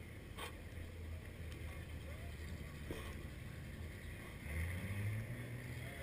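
Low rumble of off-road vehicle engines idling, swelling and rising in pitch about four and a half seconds in as one revs up.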